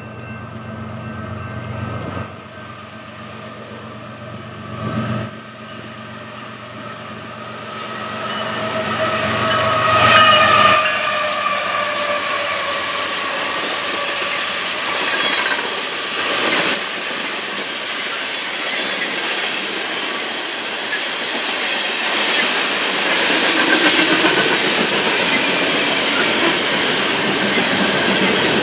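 A freight train passing: its diesel locomotive horn sounds over a low rumble through roughly the first ten seconds, the chord sliding slightly down in pitch as it nears. Then a long string of open hopper cars rolls by with steady wheel noise and clicking over the rail joints.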